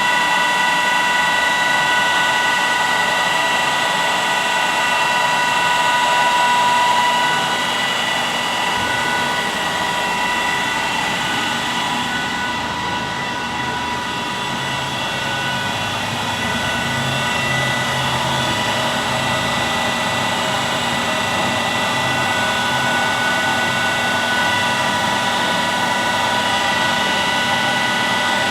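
Haas EC-1600 horizontal machining center running with a steady mechanical whine made of several high tones. It eases slightly about seven seconds in and builds back up over the second half.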